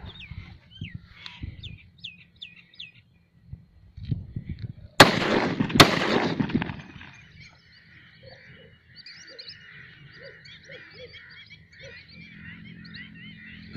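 Two loud gunshots about five seconds in, a little under a second apart, each ringing out briefly. Birds chirp with sweeping calls before the shots and call thickly after them.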